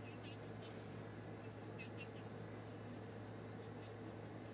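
Serio electric nail drill with a silicone polishing bit running very quietly: a faint steady hum, with light, irregular scratchy brushing as the bit skims a fingernail's surface.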